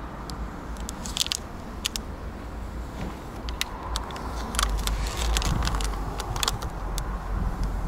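Clear transfer tape crackling as it is peeled off a vinyl decal stuck on a car's rear window glass, the crackles coming much thicker from about halfway in, over a low rumble.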